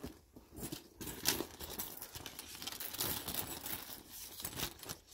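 Rustling, crinkling handling noise from a quilted leather tote bag being turned over by hand, made of irregular scratchy rustles and light taps.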